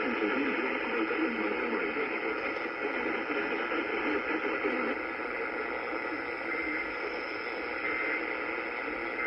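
Radio static: a steady hiss from a radio receiver with no programme, with a faint wavering murmur under it for the first five seconds, and a little quieter after that.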